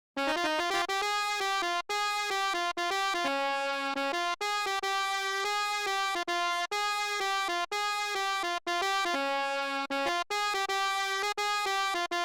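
Telolet basuri bus horn sample played as a melody in FL Studio. It is a string of held horn notes, each with many overtones, changing pitch every half second to a second with short breaks between them.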